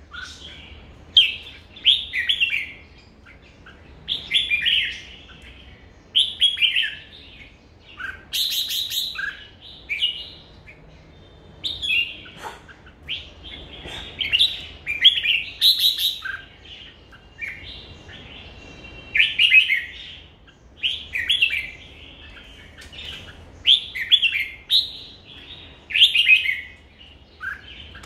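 Red-whiskered bulbul singing: short warbled phrases repeated every second or two, with brief pauses between them.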